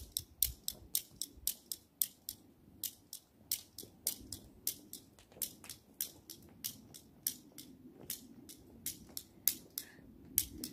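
Toy cap gun's trigger clicked over and over, out of caps, with no bangs: a run of sharp, high clicks, about three a second.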